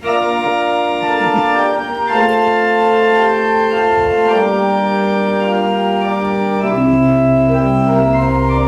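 Church organ starts abruptly and plays full sustained chords that change every second or two, with deep bass notes joining about seven seconds in.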